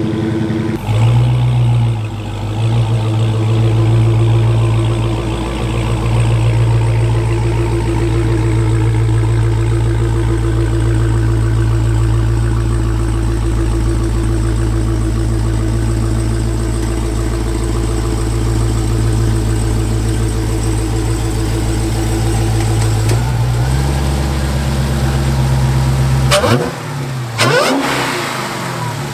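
Dodge Hellcat's supercharged 6.2-litre HEMI V8 running on a cold start, holding a steady fast cold idle that settles to a lower idle a little over twenty seconds in, then revved up and down a few times near the end.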